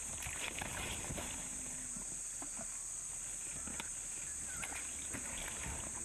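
Komodo dragons feeding on a carcass: faint wet tearing and scuffling sounds, with scattered small clicks, over a steady high-pitched insect drone.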